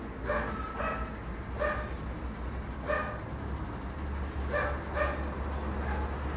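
A dog barking in short single barks, about six of them at irregular intervals, over a steady low hum.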